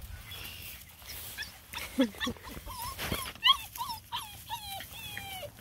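Young lemon beagle puppies whining and yipping in a string of short calls that fall in pitch, starting about two seconds in. There is a single sharp knock midway.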